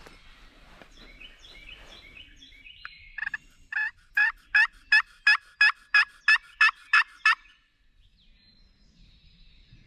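Turkey yelping: a run of about eleven loud, evenly spaced notes, about three a second, that stops well before the end. Small birds chirp faintly before it.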